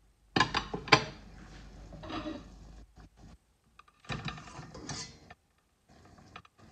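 Kitchen utensils clattering against dishes: two sharp clinks about half a second apart near the start, then softer handling noise broken by short silences.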